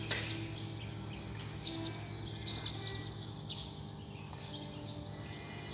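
Scattered faint bird chirps over a low steady hum in a large hall.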